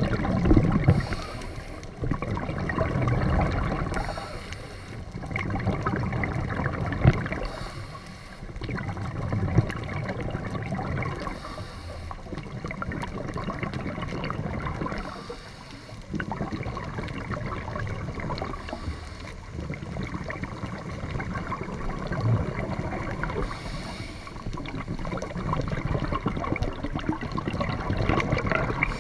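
Sea water sloshing and crackling, the noise swelling and easing every few seconds.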